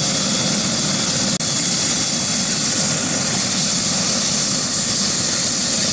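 Bell 407 helicopter running on the ground with its main rotor turning: a steady high turbine whine over loud rotor and engine noise.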